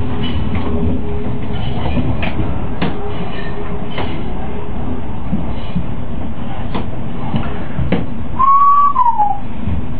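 A DT1 three-phase-drive U-Bahn train running, heard from the driver's cab: a steady rumble with a held low hum, and the wheels clicking over rail joints several times. About eight and a half seconds in, a short, louder tone slides down in pitch.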